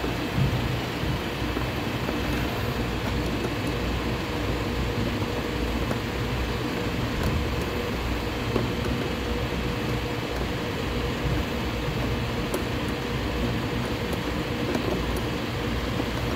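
Steady low mechanical hum with a faint constant tone, and a few faint light clicks as hands work at the car battery's terminal and clamp.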